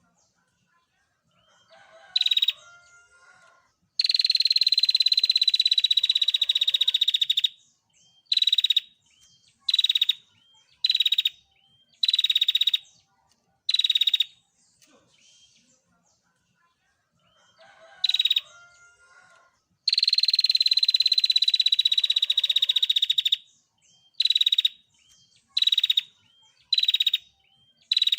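Female prenjak (prinia) giving its rapid 'ngetir' trill: one long dense trill of about three and a half seconds, pitched high and falling slightly, then a run of short trills about a second apart. The same sequence comes again about halfway through, with fainter lower chirps before each long trill.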